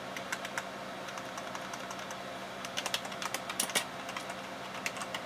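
Typing on a computer keyboard: irregular key clicks, with a quick run of keystrokes around three seconds in, over a steady background hum.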